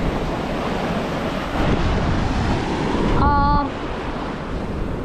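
Small surf breaking and washing up a sand beach, with wind buffeting the microphone. A brief voice sound about three seconds in.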